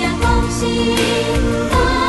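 Background music with a steady beat: a pop song track laid over the footage.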